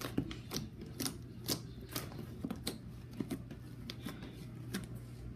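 Taffy slime being kneaded and pressed by hand, giving irregular small clicks and pops, about one to three a second.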